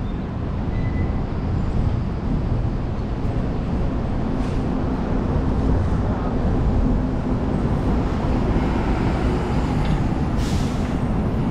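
City street traffic with a bus engine running steadily underneath, and a short hiss of air about ten seconds in.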